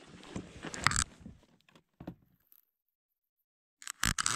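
A spinning reel is wound and the rod handled as a small hooked sea bream is brought up. About four seconds in comes a short, loud burst of splashing and knocks as the fish breaks the surface beside the kayak.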